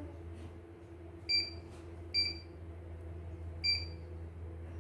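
Three short electronic key-press beeps from the CNY E900 embroidery machine's control panel as its navigation buttons are pressed, each a single high-pitched tone, spaced irregularly, over a steady low hum.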